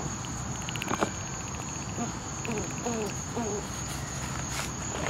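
Steady high-pitched drone of insects chirring, with one sharp click about a second in.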